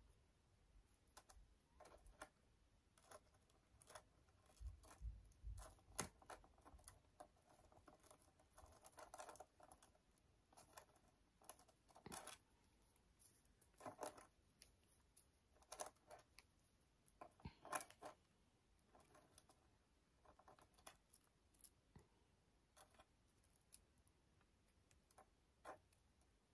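Faint, scattered clicking and rustling of beaded wire flowers being handled, the seed beads clicking against each other as the wire stems are gathered and twisted together, with a few sharper clicks now and then.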